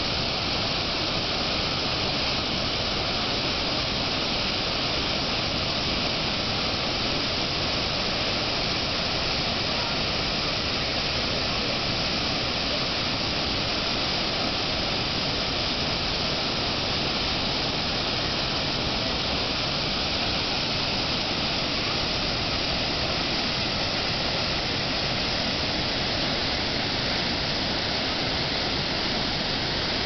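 River water rushing steadily: a continuous, even noise that does not change.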